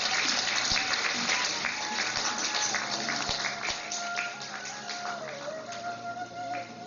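Audience applauding, the clapping thinning out over the first few seconds, while recorded music plays with a held melody line that becomes clearer from about halfway.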